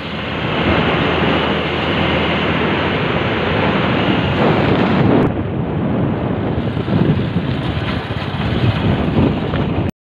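Wind rushing and buffeting over the microphone of a phone carried on a moving motorcycle, with the motorcycle running underneath. The noise is loud and steady, then cuts off suddenly near the end.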